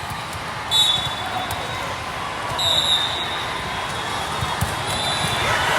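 Volleyball gym sounds: sneakers squeaking on the court floor in three short high squeaks, balls thumping, over a steady murmur of the crowd.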